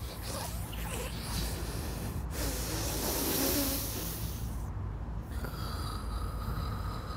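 A man breathing hard through an open mouth, long ragged breaths in and out. About five seconds in, a steady high ringing tone comes in underneath.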